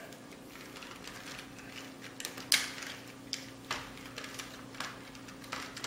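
Irregular sharp clicks and snaps of soft plastic as a toy RC car's body is cut apart with small clippers, starting about two seconds in.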